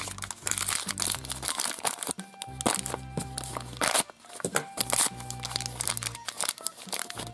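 Plastic toy packaging crinkling and tearing in irregular handling noises as a small toy is unwrapped, over background music.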